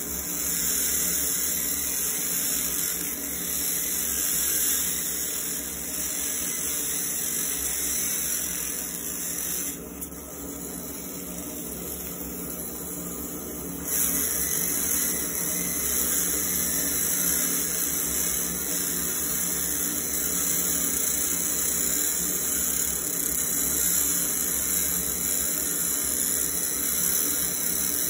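Laser engraver etching a floral pattern into a steel Glock 17 slide: a steady high hiss and crackle as the beam ablates the metal, over a steady hum from the fume extractor. The hiss drops away for about four seconds around ten seconds in, then comes back.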